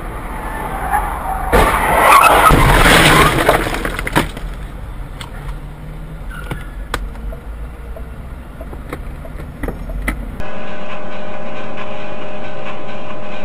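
Car driving in traffic, heard from inside the cabin as a steady low road rumble. About one and a half seconds in, a loud harsh noise lasts roughly two seconds, then a few sharp clicks. After a cut near the end, a steady hum with several held tones takes over.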